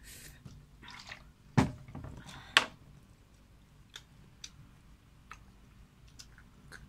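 A drink poured from a bottle into a small glass, then two sharp knocks on the table about a second apart, followed by scattered faint clicks and small handling sounds.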